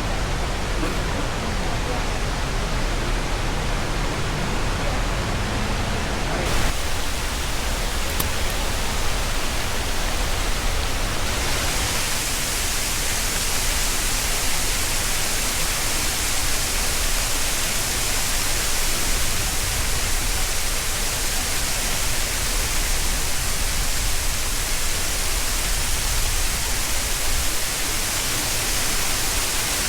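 Steady rushing and splashing of a large public fountain's water jets. The sound changes about six seconds in and turns brighter and more hissing from about eleven seconds on.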